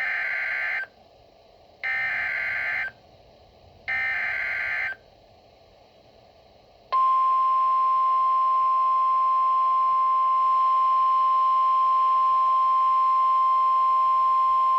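Emergency Alert System header: three one-second bursts of the SAME digital data signal, a harsh buzzing warble, about a second apart. About seven seconds in, the NOAA Weather Radio 1050 Hz warning alarm starts, a steady single-pitch tone that is still sounding at the end. It announces an emergency weather warning.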